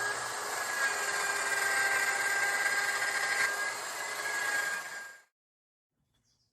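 A power tool running steadily on wood with a high-pitched whine, then cutting off about five seconds in.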